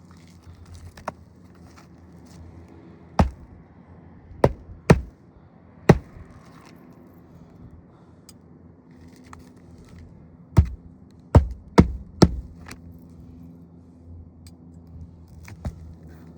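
Sharp knocks and taps of hand tools working on asphalt roof shingles: one faint knock, then two clusters of about four hard knocks each, a few seconds apart, over a steady low hum.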